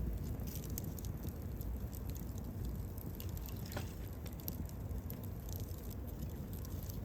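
Wood campfire crackling: irregular sharp pops and ticks over the low, steady rush of the flames.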